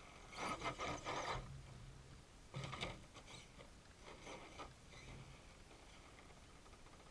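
Radio-controlled rock crawler's motor and gears whirring in four short throttle bursts as the truck creeps forward; the first burst is the longest and loudest, about a second.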